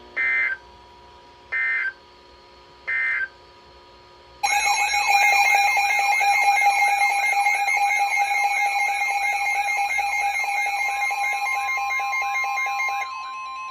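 Emergency Alert System tones: three short bursts of the digital SAME header data, then a loud warbling alert tone that sweeps up and down about twice a second. The alert announces an incoming tornado warning. Near the end a steady higher tone comes in, and the warbling stops shortly after.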